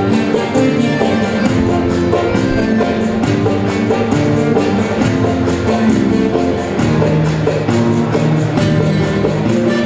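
Instrumental music with plucked guitar-like strings and a steady beat.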